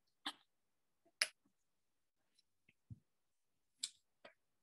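Near silence broken by a handful of short, faint clicks and taps, with one soft low thump about three seconds in: handling noise from a phone being held and moved.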